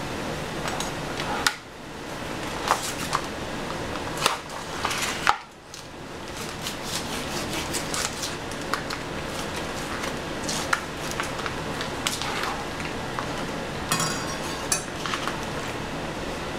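A chef's knife cutting open a vacuum-sealed plastic pack of pork roast and slicing the meat on a plastic cutting board: the plastic crinkles and the blade clicks and taps in irregular bursts, over a steady background hiss.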